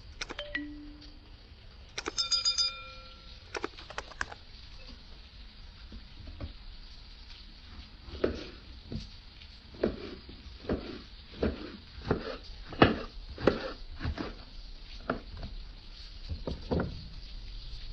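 Kitchenware being handled: a short ringing metal clink, then a run of about a dozen dull knocks, between one and two a second.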